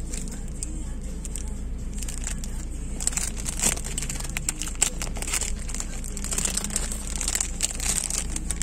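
Irregular crinkling and crackling close to the microphone, the sound of plastic or the phone being handled, thickest in the second half, over a steady low car hum.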